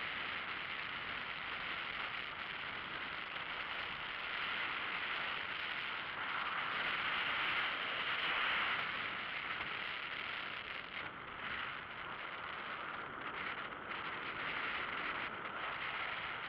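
Steady rolling noise of a velomobile heard from on board: tyres hissing on asphalt, with the whir of its chain drivetrain inside the shell.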